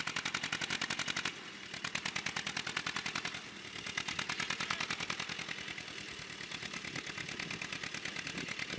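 Farm tractor's diesel engine chugging under load as it tows two trailers of hay, a fast, even beat of exhaust pulses that grows fainter over the last few seconds as it moves off.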